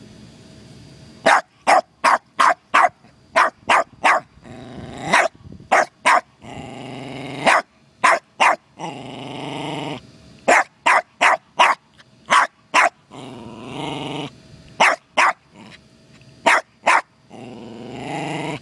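Cairn terrier barking: volleys of short, sharp barks several a second, starting about a second in, broken by longer drawn-out vocal sounds of about a second each, some rising in pitch.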